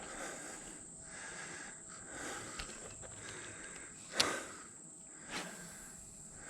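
Quiet outdoor background with a steady high-pitched hum, and a sharp click about four seconds in followed by a softer one a second later.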